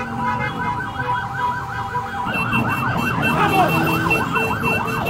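Emergency vehicle sirens sounding, one in a rapid yelp. About two seconds in, a second siren joins with slower rising-and-falling wails.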